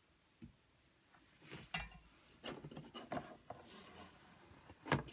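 A folding cardboard game board being slid and turned on a wooden surface: a few rubbing scrapes, then a sharp knock near the end.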